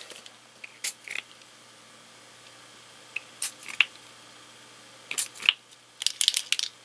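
Small pump spray bottle of Brutus Monroe surface spray ink being pressed in short sprays, mostly in quick pairs, with a cluster of sprays near the end. It sprays unevenly because its nozzle was not wiped clean.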